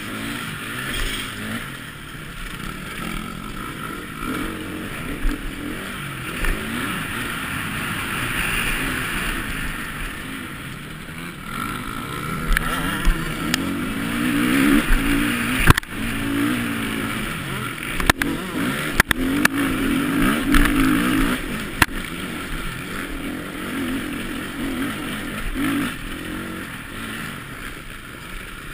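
Motocross bike engine heard up close from the rider's own machine, revving up and down as the rider accelerates and shifts over the dirt track. Several sharp knocks or clicks come in the second half.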